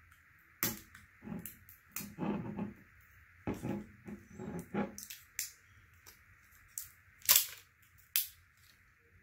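Plastic seal and cap piece being peeled and pulled off a Ramune soda bottle: an irregular run of crinkles and crackles, with the sharpest crack about seven seconds in.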